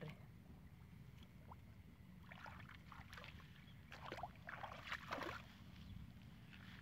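Faint splashing and sloshing of hands and feet in a shallow muddy puddle, in a few short clusters through the middle and later part, over a steady low rumble.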